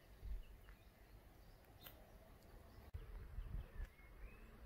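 Quiet outdoor ambience: a few faint, short bird chirps over a low rumble that swells a few times.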